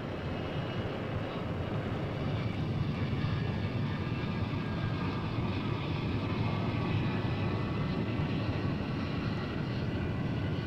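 Jet aircraft engines running: a steady rushing noise with a faint high whine above it.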